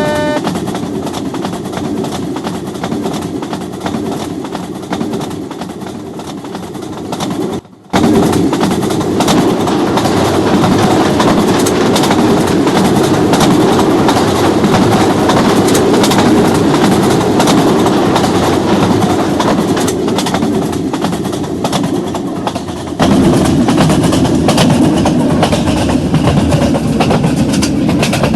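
Rajdhani Express train running along the track: a steady rumble and clatter of wheels on the rails. It breaks off for a moment about eight seconds in, then comes back louder, and it gets louder again near the end.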